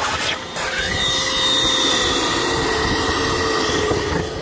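Small Bauer wet/dry shop vac, its filter removed, sucking leftover water out of a hot tub basin through its hose. It opens with a gurgling, noisy slurp. About a second in the motor's whine rises in pitch and then runs steadily.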